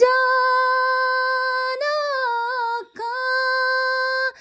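A single high voice singing a devotional naat unaccompanied, holding long steady drawn-out notes, with a brief rise and fall in pitch about two seconds in and a short break for breath about three seconds in.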